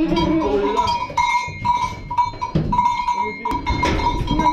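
Billy goats bleating as they come off a livestock trailer, with a call near the start and another near the end, and a few sharp knocks of hooves on the trailer floor. A steady high ringing tone at one pitch runs behind them.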